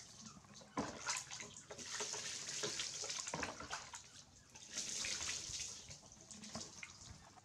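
Water poured from a plastic bowl over a wet baby monkey, splashing onto a tiled floor, in several bouts with a few sharp splashes between them as the bowl is dipped again.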